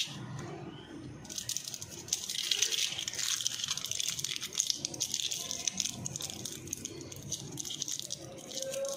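Aluminium foil crinkling as it is wrapped by hand around a piece of toffee, starting about a second in and stopping near the end.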